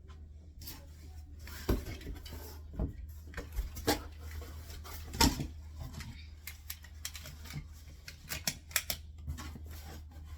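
A cardboard moving box being handled and set up for taping: irregular clicks and taps, with a few louder knocks about two, four and five seconds in.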